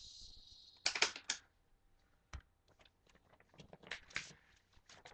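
A stapler clacking through a few sheets of paper about a second in, the loudest sound, amid papers rustling and being handled, with a single knock about halfway through.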